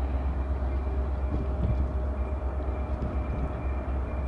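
EMD SD70MAC diesel-electric locomotive leading a mixed freight train, its engine rumbling low and steady as it approaches, with a faint steady whine over the rumble.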